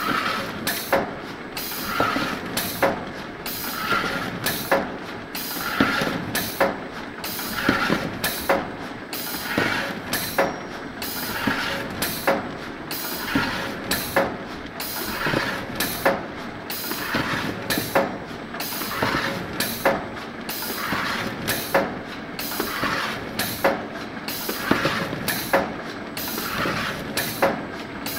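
Pneumatic paper-core cutting machine running in its automatic cycle: sharp clacks from the cylinders and valves, with hissing air between them, repeating about once a second.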